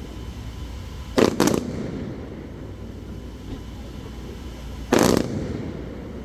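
Aerial firework shells bursting: two bangs in quick succession about a second in, and another about four seconds later, each trailing off in a short echoing rumble.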